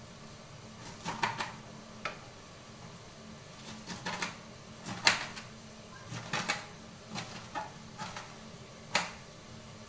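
Knife chopping shredded cabbage into smaller pieces: irregular sharp knocks of the blade striking the surface beneath, some in quick clusters, the loudest about five seconds in and near the end.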